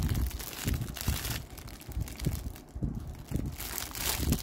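Clear plastic wrapping on a folded tea towel crinkling and rustling as it is handled, with irregular crackles and soft low bumps.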